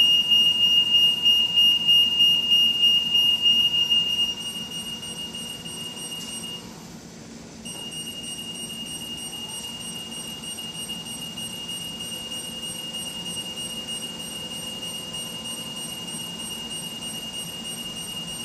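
Travel-warning annunciator on a portable post lift sounding one steady high-pitched tone while the lift moves. It is loud for about four seconds, then softer, cuts out briefly about seven seconds in, and comes back at the softer level.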